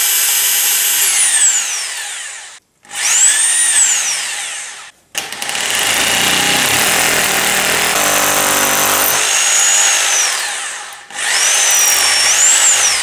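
Hammer drill with a masonry bit boring a bracket hole into plaster, run in four short bursts with the motor whine rising and falling as the trigger is eased on and off. The drill is being run gently because the wall is crumbly and may break up.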